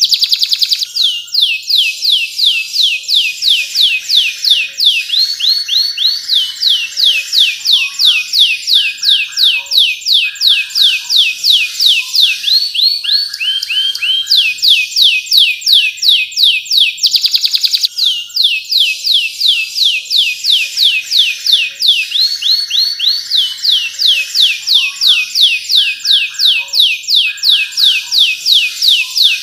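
Domestic canary singing a long, loud song of rolling trills: fast runs of high falling notes alternating with lower, buzzing rolls.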